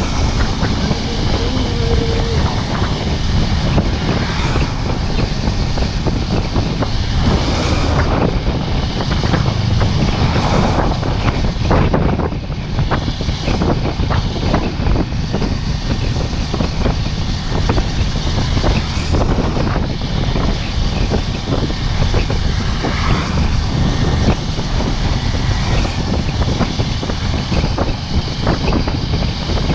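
Riding a motorcycle at speed: steady wind rush and buffeting on the microphone, with the engine and road noise underneath.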